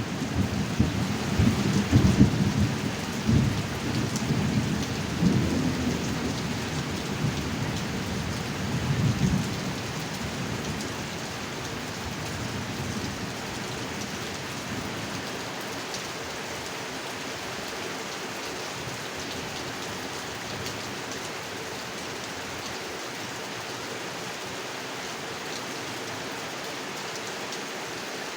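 Heavy rain falling steadily with a rolling thunderclap; the thunder rumbles in several swells over the first ten seconds and fades away, leaving the even hiss of rain.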